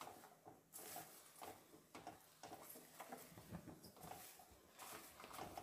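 Faint, irregular rustling and soft clicks of popped popcorn being stirred by hand in a steel kadai.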